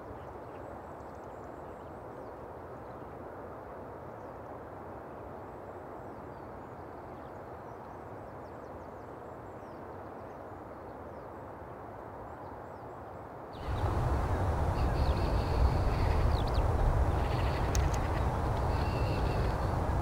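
Outdoor ambience with no speech or music: a steady low hiss with faint high bird chirps. About two-thirds of the way through it cuts abruptly to a much louder low rumble of wind on the microphone, with bird calls above it.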